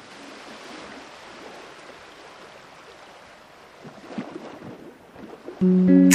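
Steady, quiet open-air noise of wind and surroundings, with no distinct event. Then loud background music with plucked guitar notes cuts in about five and a half seconds in.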